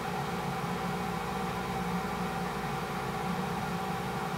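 Steady hum and hiss with a few held tones, unchanging throughout, like a small motor or fan running.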